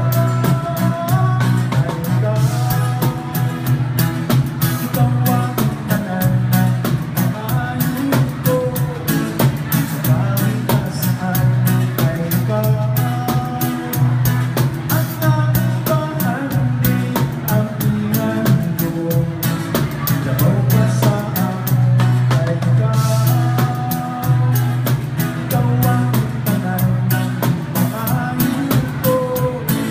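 A live band playing a song, with a guitar and a drum kit over a heavy, steady bass and frequent drum hits.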